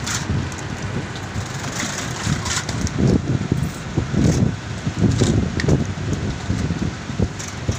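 Steady low rumbling noise with irregular gusts, like wind buffeting the microphone, and a few faint knocks.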